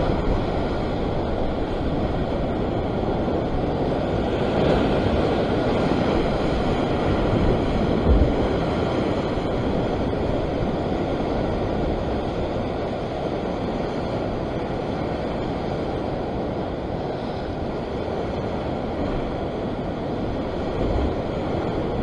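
Ocean surf breaking and washing against a rocky cliff base: a steady rushing wash that swells for a few seconds near the start, with wind rumbling on the microphone.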